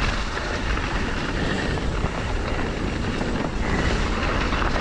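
Steady rushing noise of a mountain bike descending a wet dirt trail at speed: wind over the camera microphone and tyres rolling on the dirt.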